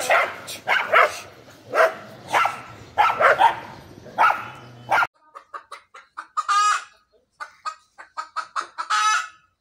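Dogs barking at each other in irregular calls. About five seconds in this gives way to a hen clucking in short repeated calls, with a few longer drawn-out ones.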